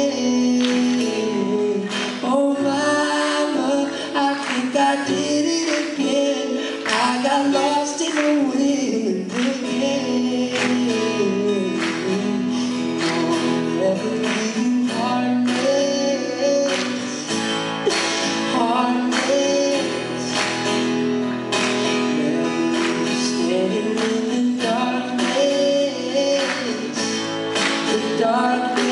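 Two acoustic guitars strummed steadily with a male voice singing over them, live on stage.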